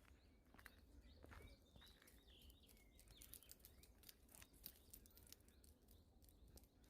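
Faint outdoor ambience: soft footsteps ticking on a path, with a few faint bird chirps about two to three seconds in.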